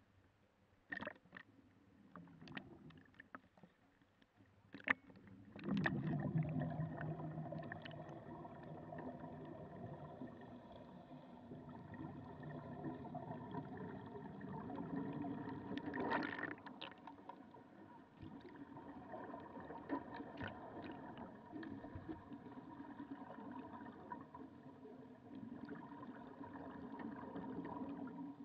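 Small splashes of water against the camera at the surface. About six seconds in, the sound turns to underwater: a steady motor hum carried through the water, with a burst of exhaled bubbles about midway.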